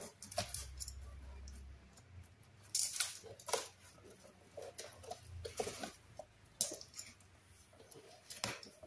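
Scissors snipping and scraping through packing tape on a cardboard box, with the box flaps being pulled open: a string of short, sharp scratches and rustles of tape and cardboard.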